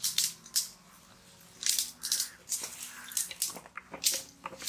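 Wet, squelching strokes of bare hands rubbing thick tandoori masala paste onto raw whole chickens, in quick irregular bursts.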